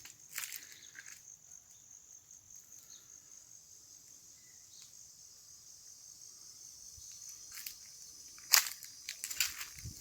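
Steady high-pitched chirring of insects in the vegetation, with a few short crunches or rustles underfoot just after the start and a sharper, louder one near the end.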